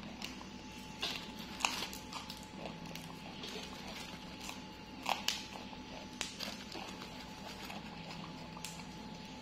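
Scattered small snaps, clicks and crinkles of leafy vegetable stems being picked apart by hand, with a plastic bag of greens rustling and a macaque biting at a stem. A steady low hum runs underneath.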